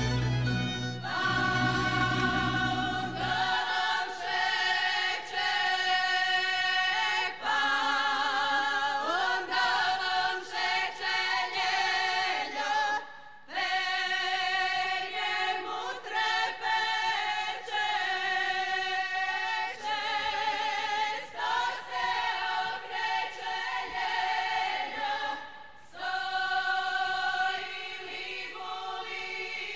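Women's folk choir singing a Slavonian kraljice song unaccompanied, in long held phrases with short breaks about 13 seconds in and again near 26 seconds. A low instrumental note sounds under the first few seconds and stops.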